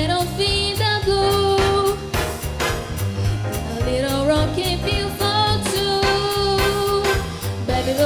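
Swing-style music playing, with held melody notes over a bass that moves in an even beat.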